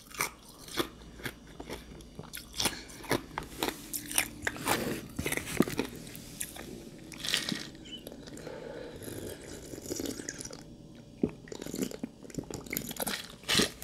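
Ice soaked in juice being bitten and chewed close to the microphone: irregular sharp crunches, quieter for a few seconds in the middle.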